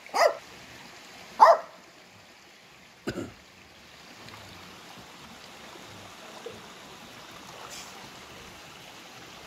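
A dog barks twice in the first second and a half, then a stream runs steadily into a rocky pool, with a single thump about three seconds in.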